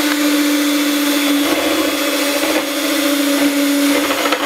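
Electric hand mixer running steadily, its beaters whipping cream in a plastic bowl, with an even motor tone over the whir of the beaters. The cream is being whipped and is just beginning to thicken.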